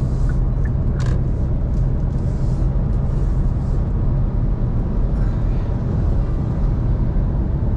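Steady road and tyre noise with engine hum inside a Kia K3 sedan's cabin, cruising at expressway speed, with one short click about a second in.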